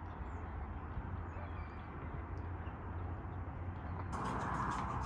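Steady outdoor background: a low rumble under a noise haze, with a few faint bird chirps. About four seconds in, a louder, brighter, crackly noise starts abruptly.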